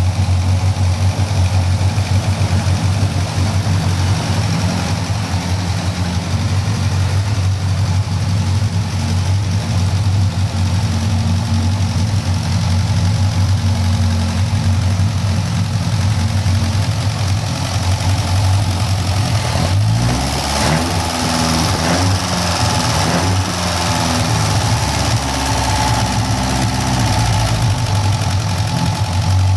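Citroën B11's 1952 four-cylinder overhead-valve engine idling steadily, running again after standing some forty years. From about two-thirds of the way through, its speed rises and falls several times before it settles.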